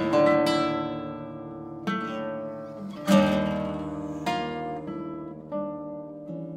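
Solo classical guitar playing chords, struck about once a second and left to ring. The loudest chord comes about three seconds in, and softer strikes follow, dying away near the end.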